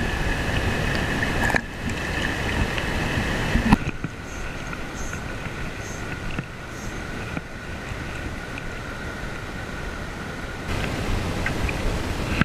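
Steady rush of a shallow river flowing over stones, mixed with wind noise on the camera microphone. The level drops abruptly a little under 4 seconds in and rises again near the end.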